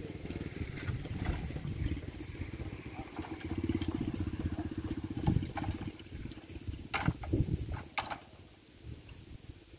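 A low, steadily pulsing engine rumble, with several sharp cracks and knocks of hollow bamboo stems being pulled and dropped on a pile, most of them in the second half.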